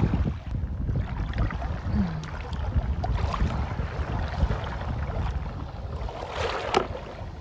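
Wind buffeting the microphone: a steady, gusting low rumble, with a brief hissing burst about six and a half seconds in.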